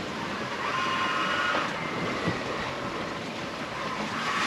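Steady wind and rushing sea water around a sailboat under way in gusty weather, with wind noise on the microphone.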